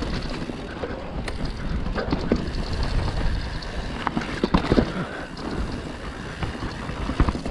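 Mountain bike on a dirt trail: wind buffeting the microphone over the rumble of tyres, with scattered clicks and rattles from the bike.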